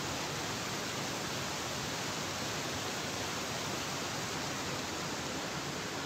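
River water rushing and tumbling over rocks in a stretch of rapids, a steady, unbroken rush of white water.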